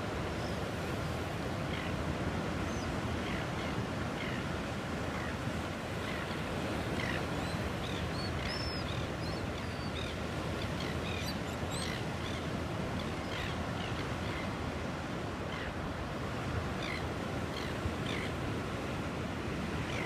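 Ocean surf breaking on a rocky shore, a steady rush of waves, with short high chirps scattered throughout.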